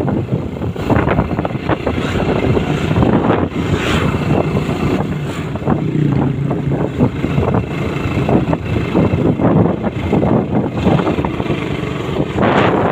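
Wind buffeting the microphone on a moving vehicle, with an engine running underneath.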